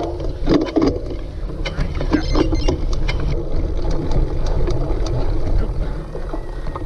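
Cyclocross bike being ridden over rough ground: a steady low rumble with wind on the microphone, broken by frequent sharp rattles and knocks.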